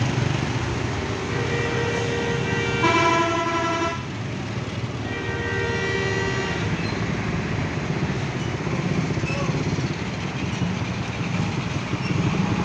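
Bus horns honking in two long blasts, each of several tones at once. The first runs from about a second in to about four seconds and gains a lower tone near three seconds; the second runs from about five to seven seconds. The steady rumble of bus engines runs underneath, and another horn starts near the end.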